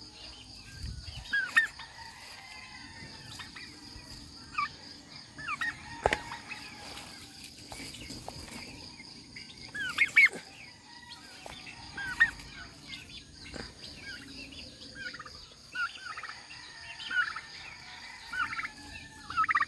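Domestic turkeys calling over and over, short high notes scattered throughout, with a few sharp knocks as cracked corn is scooped by hand into a bamboo feeder.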